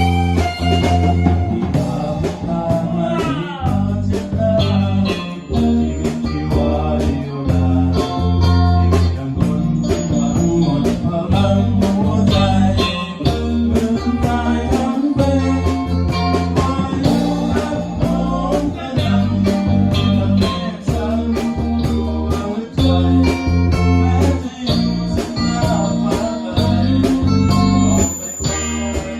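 Thai rock song played by a band: electric guitar lines over bass and drums at a steady beat.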